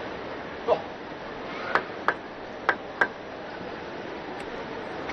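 Plastic table tennis ball bounced four times in quick succession, a few seconds before a serve, over the steady hum of the arena.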